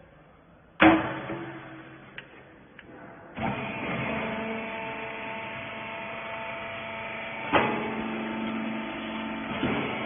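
Hydraulic rag baler: a loud metal bang about a second in as its feed lid is shut, then, from about three and a half seconds, the electric motor and hydraulic pump running steadily with a steady hum of several tones, broken by a knock at about seven and a half seconds and another near the end.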